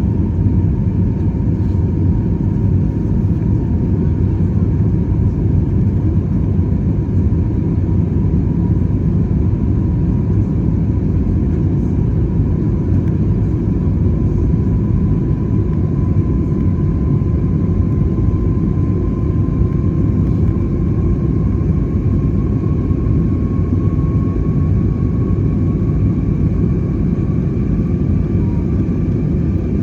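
Jet airliner cabin noise heard from inside the cabin: a steady, loud engine and airflow rumble, with a thin engine whine that rises slowly in pitch.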